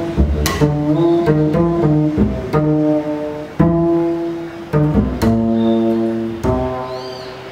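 Double bass played pizzicato, with plucked strings in an improvised line. Quick runs of notes come first, then single notes left to ring out and fade for about a second each.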